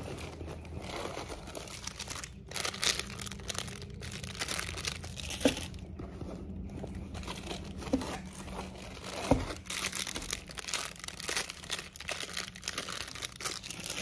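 Hands rummaging in a cotton canvas tote bag: the fabric rustling and items shifting inside, with three sharper knocks about five, eight and nine seconds in.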